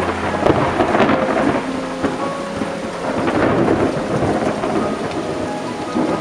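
Steady heavy rainfall with thunder rumbling: a surge of thunder about half a second in, another around three seconds in, then the rain carrying on.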